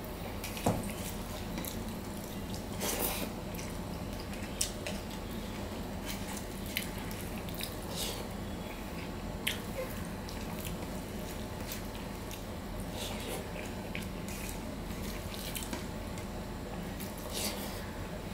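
Eating by hand: scattered wet clicks and squishes of fingers mixing rice with mashed potato and masoor dal on a steel plate, with the wet smacks of chewing.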